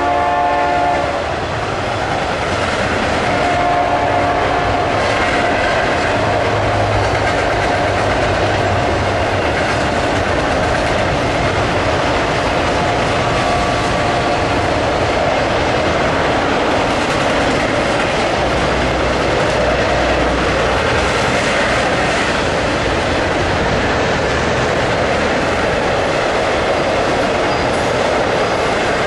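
Double-stack intermodal freight train passing at about 50 mph: the steady, loud rolling noise of its container cars' wheels on the rails. A train horn sounds at the start and stops about a second in.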